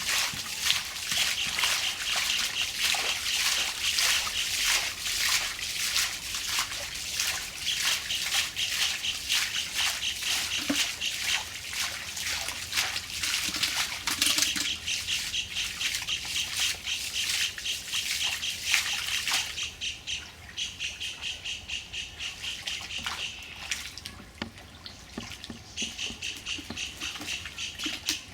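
Water splashing and sloshing as hands work through shallow muddy water, with a pulsing high chirping in the background. The splashing thins out about two-thirds of the way through.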